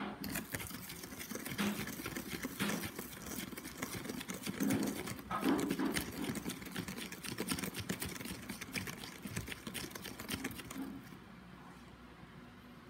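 Plastic spoon stirring salt into vinegar in a clear plastic cup: a rapid, irregular scraping and clicking of the spoon and undissolved salt grains against the cup's sides and bottom. It dies down about a second before the end.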